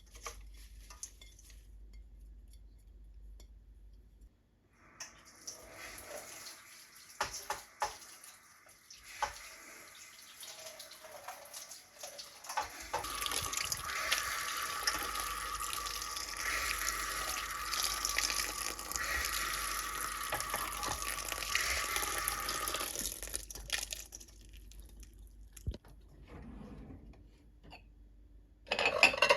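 Kitchen tap running into a sink, with small knocks and splashes as something is rinsed under it. The flow gets stronger about halfway through and stops several seconds before the end. A sharp knock comes right at the end.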